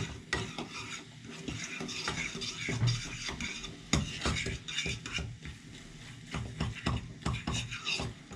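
A fork stirring scrambled eggs in a frying pan, with irregular scraping and clicks of metal against the pan. The sharpest knocks come right at the start and about four seconds in.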